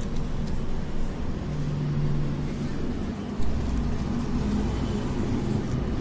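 Road traffic with a motor vehicle engine running: a steady low rumble with a low held hum, heavier in the bass from about halfway through.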